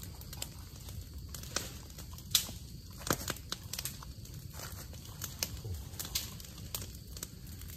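Dry leaves and twigs rustling, crackling and snapping at irregular moments as someone moves through undergrowth, over a steady low rumble.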